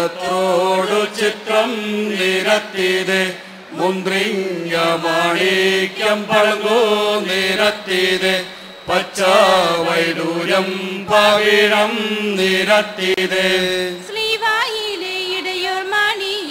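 A small group of men and women chanting a song together into microphones, in a steady, droning melody. About fourteen seconds in, the line moves higher.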